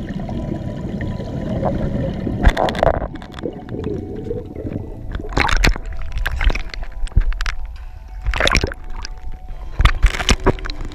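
Muffled underwater gurgling as the camera rises through the bubbles of ascending divers, then irregular splashing and sloshing of surface waves against the waterproof camera housing from about two and a half seconds in.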